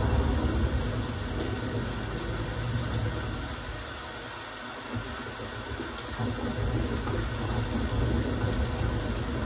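Steady rain, heard as an even hiss. A low rumble underneath comes in at the start, fades away around the middle and then returns.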